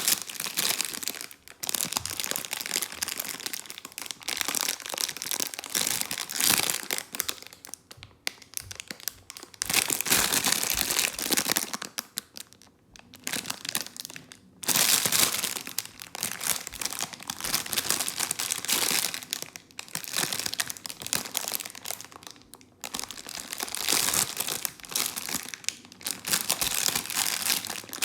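Packaging crinkling and rustling in repeated bursts with short pauses as a toy train set is unpacked by hand.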